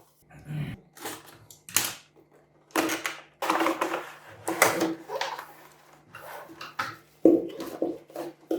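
Irregular rustling, scraping and knocking of a cardboard box and its packaging being opened and handled.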